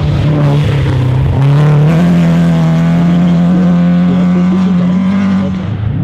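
Rally car engine running hard at high revs. Its pitch steps up about a second and a half in, holds steady, then falls away near the end.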